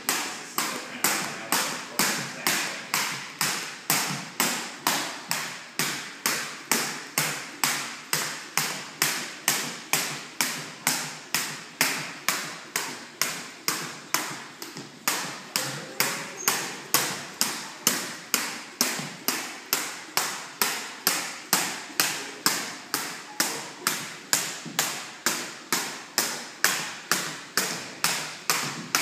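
Skipping rope slapping a hard floor in a steady rhythm, about two strikes a second, as someone jumps rope without pause.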